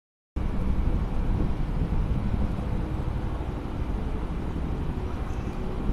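Steady low rumble of a JR East 205 series 5000 electric commuter train standing at a station platform, cutting in abruptly a moment in.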